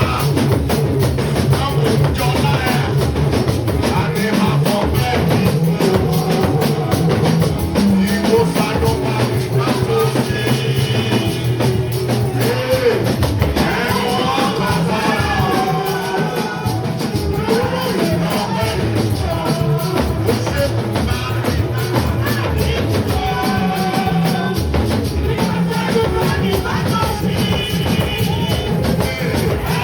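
Worship music played by a band with drum kit and bass, with voices singing over it, at a steady level.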